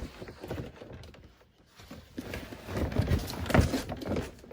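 Cardboard knocking, scraping and clattering against a trash can in an irregular run of knocks as it is forced in: it doesn't fit.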